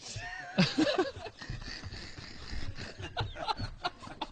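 Men laughing and chuckling in short, broken bursts.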